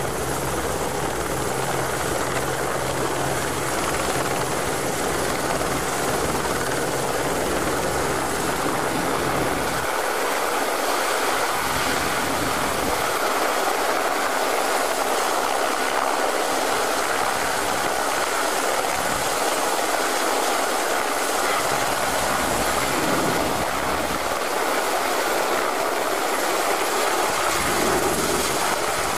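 Turbine helicopters (Aérospatiale AS350 and Bell 206B JetRanger) running close by at hover and low flight: a steady rush of rotor and turbine noise. A deep low rotor throb is strong at first, fades out about a third of the way in, and comes back now and then.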